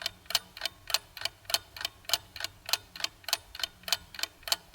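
Steady, even ticking, about three and a half ticks a second, over a faint low hum.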